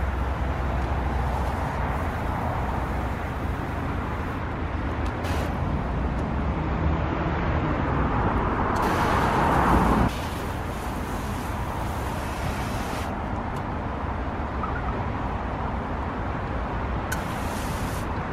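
Hose-pipe snow foam gun spraying foam onto a car: a steady hiss over a low rumble. The hiss grows louder about eight seconds in and drops suddenly about two seconds later.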